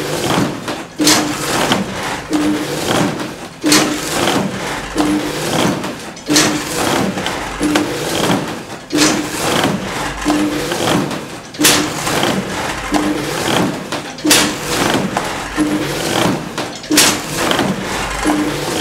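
Church bells ringing in a steady swinging peal, a stroke about every second and a quarter, with a stronger stroke every other beat, each one ringing on into the next.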